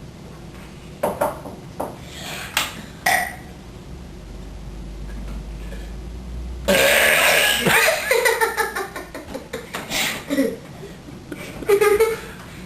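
Children burping: a few short burps in the first few seconds, then one long, loud belch about seven seconds in, followed by more short burps and giggling.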